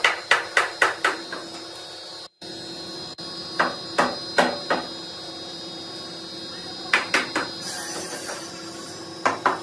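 Hammer striking a solid mulberry-wood door frame to drive its joints together during assembly, in quick bursts of three to five sharp knocks separated by short pauses. A steady hum runs underneath.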